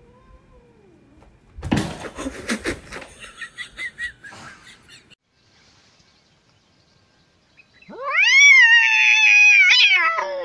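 A cat yowling once at length: a drawn-out caterwaul that rises, holds and then falls away, starting about eight seconds in. Earlier, a loud noisy burst of about a second.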